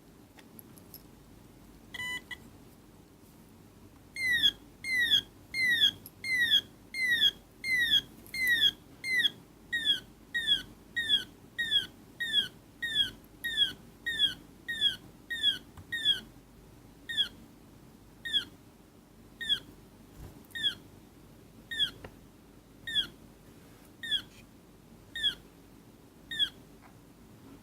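Electronic parrot sound-effect circuit making synthetic bird chirps: a short beep, then a steady run of short chirps that each fall in pitch, about two a second, slowing to about one a second for the second half.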